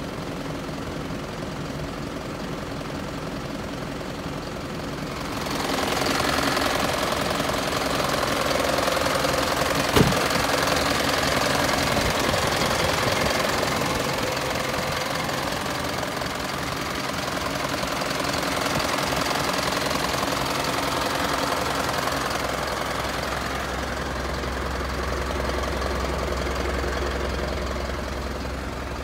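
Isuzu Elf truck's 4JJ1 four-cylinder diesel engine idling steadily, louder from about five seconds in, with a single sharp click about ten seconds in.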